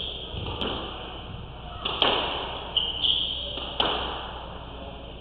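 Squash ball struck hard in a rally, three sharp smacks off rackets and walls that echo in the court, with high shoe squeaks on the wooden floor between them.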